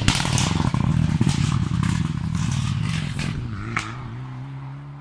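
Rally car's turbocharged four-cylinder engine passing close at speed and fading away down the road, revving hard through its gears with a single sharp crack a little before the end.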